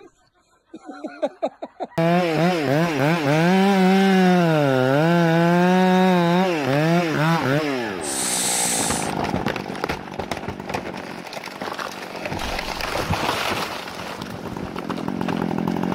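Chainsaw cutting into a large tree trunk under load, its pitch wavering as the cut goes on. About six seconds in the saw's note drops away and the tree comes down with cracking and crashing. The saw is running steadily again near the end.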